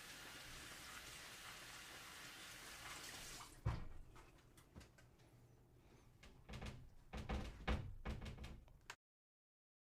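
A steady hiss that is cut off by one loud thump about three and a half seconds in, then, after a quieter stretch, a run of heavy thumps and knocks that ends abruptly in silence about nine seconds in.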